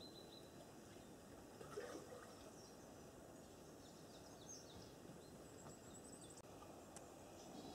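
Near silence of a forest with faint, scattered high bird chirps, and one brief faint sound a little under two seconds in.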